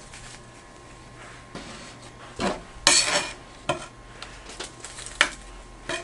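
A kitchen knife scraping and knocking on a plastic cutting board as cut cinnamon rolls are lifted off it and set on a metal baking sheet: about five short separate scrapes and clicks, the loudest a brief scrape about three seconds in.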